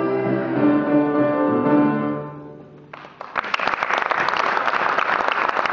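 A children's choir with piano accompaniment holds the song's final notes, which die away about two seconds in. About three seconds in, the audience breaks into applause that carries on.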